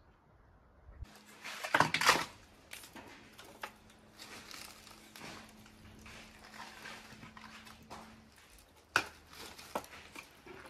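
Dry branches being pulled from a woodpile and gathered up by hand: wood clattering and twigs cracking, starting about a second in and loudest soon after, with two sharp knocks near the end.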